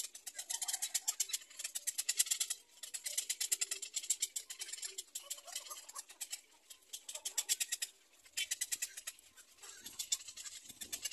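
Black-crowned night heron chicks giving rapid clicking calls in long runs, with short breaks.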